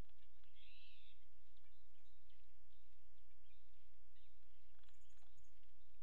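Outdoor ambience over a steady low electrical hum, with one short bird call about a second in and faint high chirps and a few soft knocks near the end.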